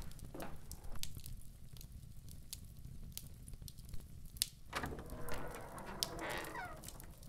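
Footsteps on a hard floor at the start, then about five seconds in a wooden door starting to open with a creak.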